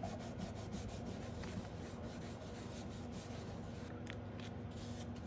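Plastic scraper card rubbed across a steel nail-stamping plate in short scraping strokes, a run of them near the start and a few more about four seconds in, over a low steady hum.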